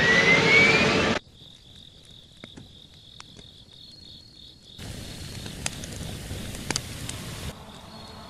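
A crashing airliner's loud rushing dive with a rising whistle, cut off abruptly about a second in. Then crickets chirp steadily, and from about five seconds in a campfire crackles with sharp pops for a couple of seconds.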